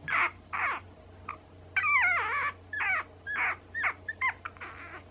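A one-month-old puppy whimpering: a string of about ten short, high whines, many sliding down in pitch, with one longer wavering whine about two seconds in.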